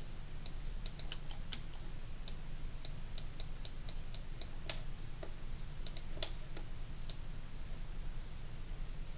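Irregular clicking of computer keyboard keys and mouse buttons, with a steady low hum underneath.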